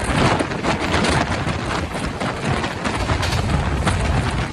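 Double-decker express train running at speed through a station without stopping, heard from an open coach door: a steady rush of wheels on rail with rapid clicking clatter and wind on the microphone.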